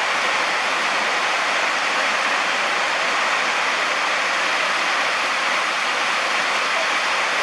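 Heavy monsoon rain pouring steadily: a dense, even hiss that does not change.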